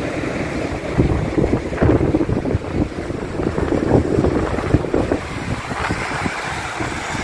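Muddy floodwater of the Marpha Khola rushing over a mud-and-boulder deposit, under heavy wind buffeting the microphone in uneven gusts that are strongest in the middle.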